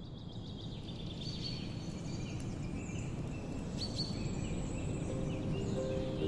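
Birds chirping and whistling over a low steady rumble, gradually getting louder. Soft sustained music notes come in about five seconds in.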